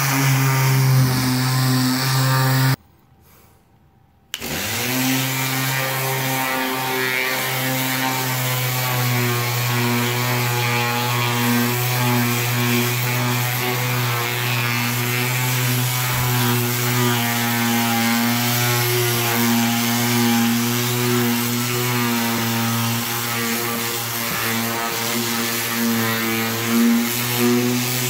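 Random orbital sander running steadily against a fiberglass boat hull, a strong even hum with a rough scrubbing edge. The sound cuts out suddenly about three seconds in and comes back a second and a half later.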